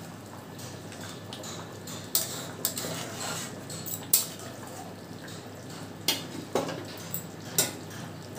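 Wooden spatula stirring chicken curry in a metal kadai, scraping the pan and knocking against its side about seven times at irregular intervals.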